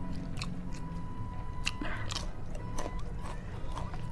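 Close-up chewing and mouth sounds of a person eating rice and fried fish by hand, with irregular sharp wet clicks.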